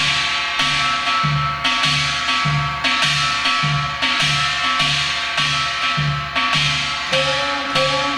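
Korean drum played in the hwimori rhythm of Gyeongsang-do shaman-ritual music, taken slowly: deep strokes about twice a second alternate with sharper, brighter strokes. Steady ringing tones sound underneath, and their pitch pattern shifts about seven seconds in.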